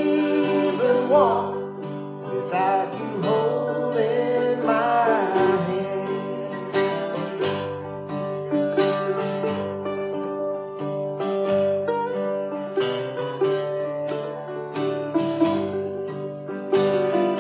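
Acoustic guitar strumming and mandolin picking an instrumental break in a country gospel song.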